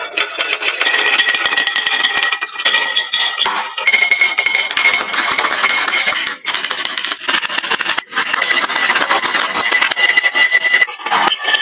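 Many marbles clattering down a wooden marble run, a dense rattle of clicks and knocks that eases briefly twice in the second half.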